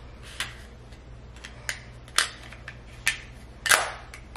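Sharp plastic clicks of a Sigma camera lens and its lens caps being handled and snapped on, about five separate clicks, the loudest a longer click-scrape near the end.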